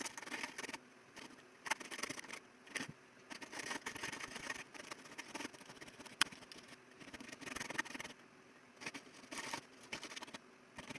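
Hand file scraping along a sterling silver chain in short, irregular strokes, with a few sharp clicks in between.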